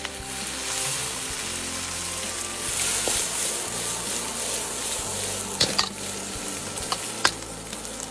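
Chopped green and red chillies and garlic sizzling hard in hot pork-belly fat in a pan as they are stirred, a steady dense hiss. A few sharp clicks come near the end, about three.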